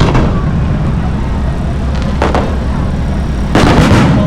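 Fireworks bursting with loud booms over a continuous low rumble: one burst at the start, another about two seconds in, and a louder cluster of rapid bursts near the end.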